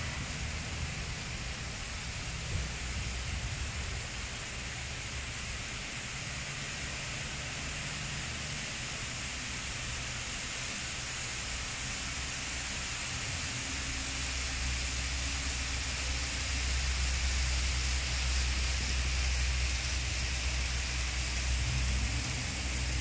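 Kato N scale model trains running around the track: a steady hiss with a low rumble that grows louder a little past halfway.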